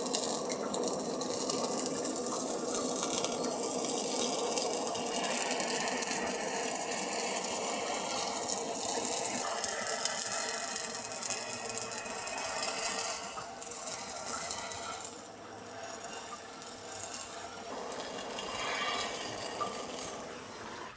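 Handheld butane blowtorch hissing as it sears a scored raw fish loin, with the fat sizzling and popping under the flame. The sound drops off about two-thirds of the way through.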